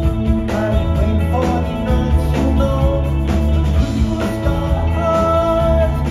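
Live rock band playing a song through a club PA, recorded from the crowd: electric guitar, bass guitar and drums with a steady beat, and keyboards.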